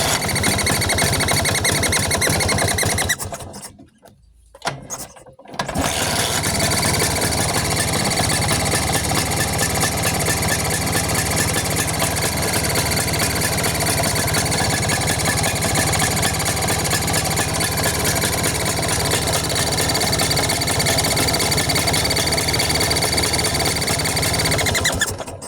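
Vespa two-stroke scooter engine running with a thin high-pitched chirp or whistle ('cuit') over the engine note. It stops about three and a half seconds in, starts again near six seconds and runs steadily until it is shut off near the end. The owner takes the chirp for a leak in the compression or carburettor area.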